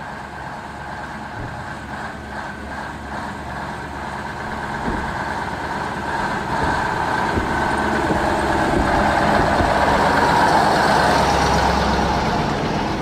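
Ural six-wheel-drive army truck driving up a rutted dirt road, its engine growing steadily louder as it approaches and dropping away as it passes close by near the end.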